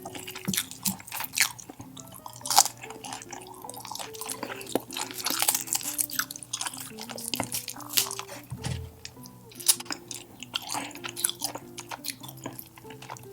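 Close-miked chewing of grilled meat: wet, sticky mouth sounds with sharp clicks and some crunching, over light background music with a stepping melody.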